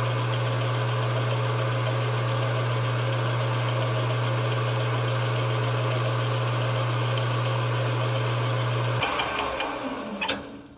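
JET 9x20 metal lathe switched on and running steadily with a strong low motor hum while a scissor-type knurling tool is pressed into the spinning metal bar. About nine seconds in the motor is switched off and the lathe spins down, with a sharp click near the end.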